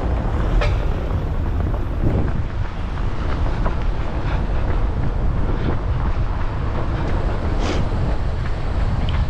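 Wind buffeting the microphone of a moving camera: a loud, steady low rumble, with a few faint, irregular clicks over it.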